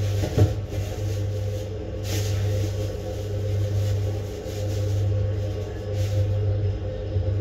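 Steady low mechanical hum that swells and eases slowly, with a single knock about half a second in.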